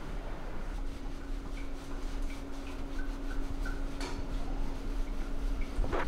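Towel rubbing over a dog's long wet coat, over a steady mechanical hum, with a sharp knock about four seconds in and another near the end.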